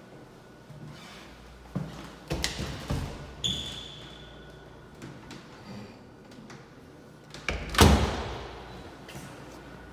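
Apartment entry door being handled: a few clicks and knocks from the latch and lock, a short squeak, then the door shutting with a loud thud a little under eight seconds in that rings on briefly in the bare rooms.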